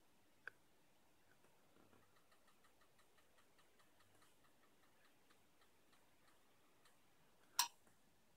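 Metal tweezers clicking against a circuit board while tiny 0402 surface-mount resistors are placed: a sharp click about half a second in and a louder one near the end. Under them runs faint, even ticking, about three ticks a second.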